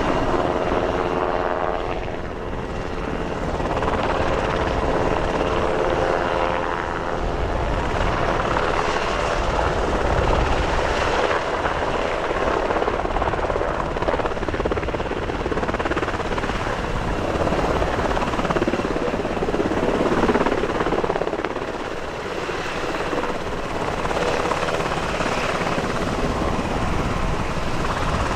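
Sikorsky UH-60M Black Hawk helicopter's main rotor and twin General Electric T700 turboshaft engines running steadily as it hovers low and settles onto the runway. The loudness swells and dips a little, with a whine of several tones in the first few seconds.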